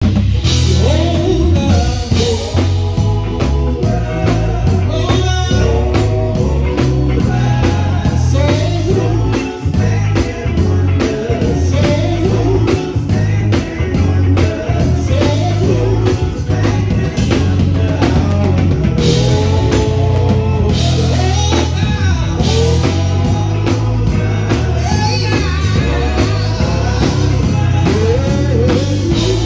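Male gospel vocal group singing into microphones over live band backing with drums and a heavy low end.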